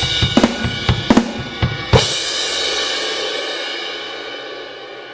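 Sampled Yamaha Oak drum kit from BFD2 with the JM Room 1 room preset, played through a 2Box drum module. Three hard hits with crash cymbals come in the first two seconds, then the cymbals ring out and slowly fade.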